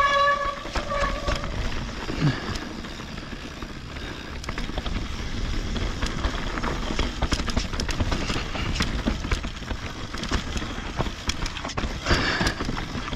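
Mountain bike rolling down a rocky dirt singletrack: tyres crunching over dirt and stones, with scattered clicks and rattles from the bike and wind rumbling on the on-bike camera's microphone. A short, steady high-pitched whine sounds during the first second and a half.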